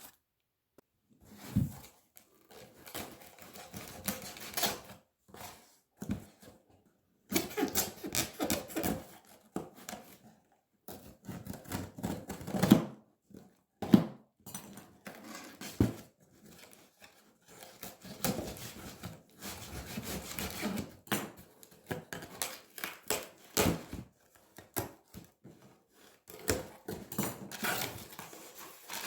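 A cardboard Amazon shipping box being opened by hand and its packaging handled: irregular clicks, scrapes and rustles with short pauses between them.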